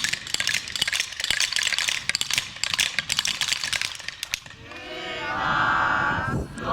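Wooden Easter rattles (Klappern) clattering rapidly for about four and a half seconds, then a group of children's voices calling out together in a drawn-out chant near the end.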